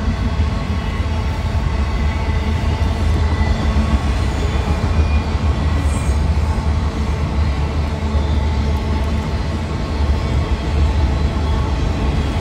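Freight train of autorack cars rolling past, with a steady low rumble of steel wheels on the rails.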